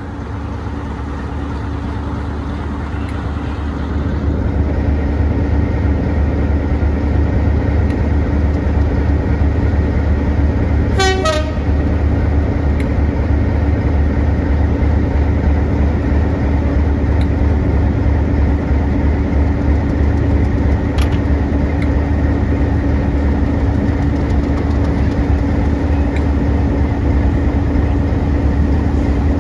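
Diesel locomotive running steadily, growing louder about four seconds in, with a short horn toot about eleven seconds in.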